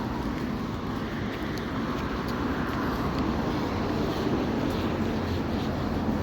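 Road traffic noise: a car passing on a road, swelling about two to three seconds in.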